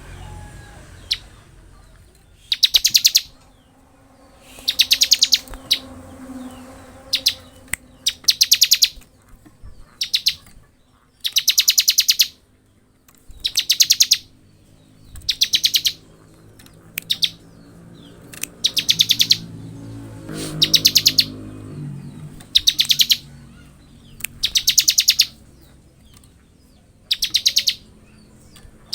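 Bar-winged prinia (ciblek) singing its rapid buzzing trill, the 'ngebren' style: high, fast-pulsed bursts of about a second, repeated every couple of seconds, with a few short single chirps in between.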